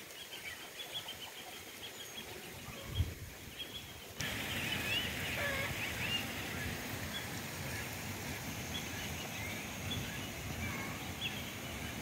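Small birds chirping in short, repeated calls over a steady outdoor hiss. A single knock sounds about three seconds in, and the background noise jumps up abruptly about a second later.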